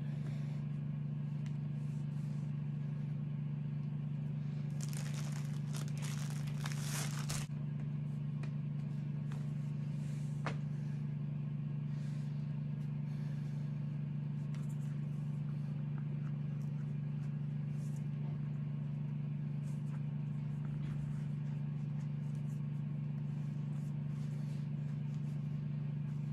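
A steady low hum, with a short spell of rustling about five to seven seconds in as the dolls' clothes are handled.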